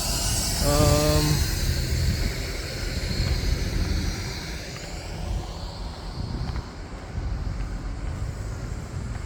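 Street traffic: a low, steady rumble of passing vehicles, with the hiss of one vehicle going by that fades away over the first five seconds or so. A short steady tone sounds briefly about a second in.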